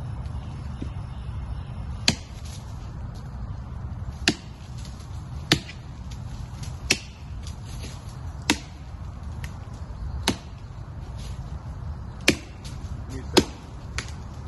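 Hatchet chopping into the trunk of a dead standing tree: single sharp blows of steel into wood, about one every one and a half to two seconds, with a few lighter taps between.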